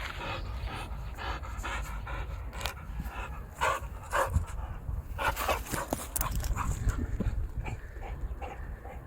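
Boxer dog panting, about three breaths a second, with louder, irregular breaths in the middle.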